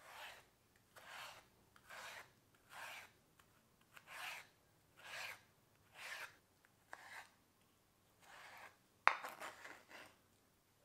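Regular rasping, scraping strokes, about one a second, with a sharper, louder scrape and a quick flurry of shorter strokes about nine seconds in.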